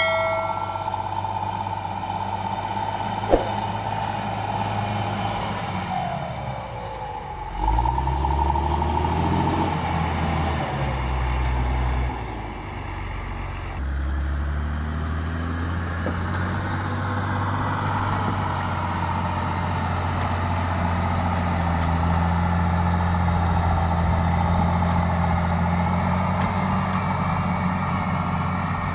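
Diesel engine of a motor grader running as it works, its pitch rising and falling as it revs and settles back to a steady hum. A short electronic chime sounds right at the start.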